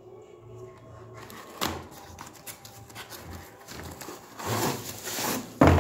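Hands handling and opening a hair straightener's cardboard retail box on a table: rubbing and scraping of the carton with scattered small knocks, a sharp knock about a second and a half in and a louder knock near the end.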